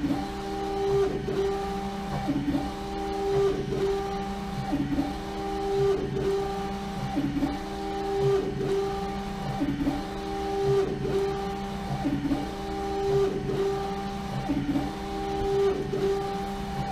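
LogoJet UVx60XL UV printer laying down the colour coat of a full-wrap print on a bottle in its rotary jig. The print-head carriage motor sweeps back and forth, a steady motor tone that swells and fades with each pass, about one pass every 1.2 seconds.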